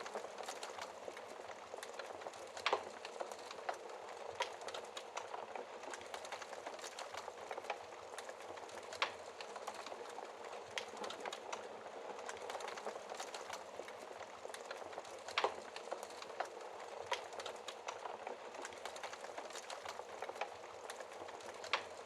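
Wood fire crackling in a fireplace: a soft steady hiss full of small crackles, with a louder pop about every six seconds.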